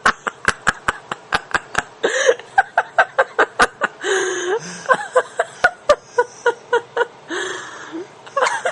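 A person laughing in a long run of quick, breathy chuckles, about three or four a second, with a few short voiced sounds between them.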